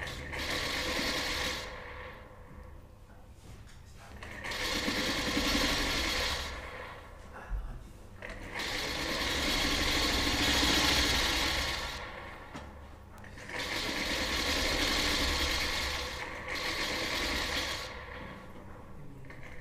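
Singer sewing machine running in about five separate bursts, each one to three and a half seconds long, with short pauses between. The longest run is in the middle.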